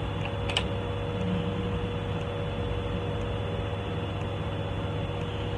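A steady background hum and hiss with a faint constant tone, with one small sharp click about half a second in.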